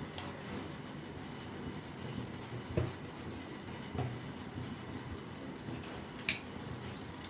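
Steady low rumble of a pan of spiced water heating on the stove, with two soft knocks and one sharp utensil click about six seconds in as spices are added.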